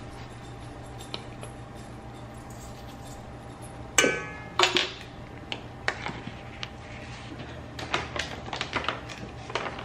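A metal measuring spoon clinking against a stainless steel mixing bowl. A sharp ringing tap comes about four seconds in, a couple more follow within two seconds, and then comes a run of lighter clicks and taps.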